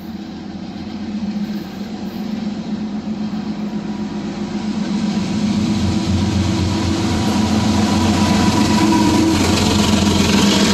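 Diesel locomotives of a CSX freight train approaching, their engine drone growing steadily louder, with wheel-on-rail rumble rising near the end as the lead locomotive passes close by. No horn is sounded.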